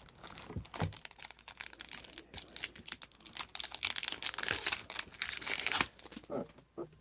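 Foil trading-card pack wrapper being torn open and crinkled, a dense crackle for about six seconds, followed by a couple of soft taps near the end.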